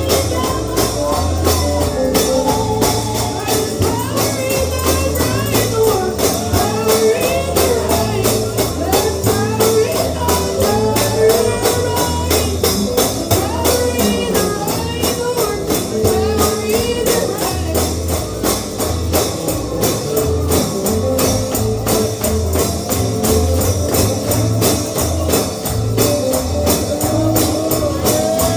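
Bluegrass gospel music with a fast, even tambourine beat over a pulsing bass and a melodic lead line.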